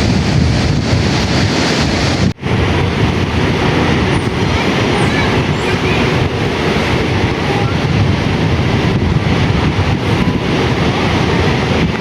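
Strong sea wind buffeting the microphone over the rush of surf, a loud steady rumble. It drops out for a moment about two seconds in.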